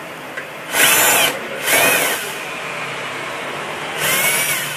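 Bosch cordless drill-driver backing out the back-cover screws of an LED TV, in three short runs. Each run has a motor whine that rises and falls in pitch.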